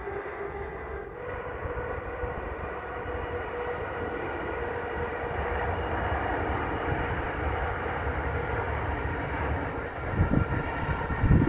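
A distant train running across the marshes, a steady far-off rumble with a faint hum. Gusts of wind buffet the microphone twice near the end.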